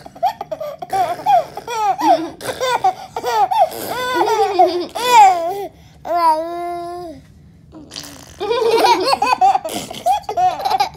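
A baby and a young girl laughing together in high-pitched giggles and squeals. About six seconds in comes one long, steady held voice note, then a brief lull before the laughter starts again.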